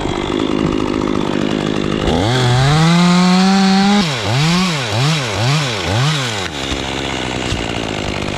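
Chainsaw engine idling, then revved up about two seconds in and held at full throttle for a couple of seconds without cutting. It is then blipped up and down four times before dropping back to idle.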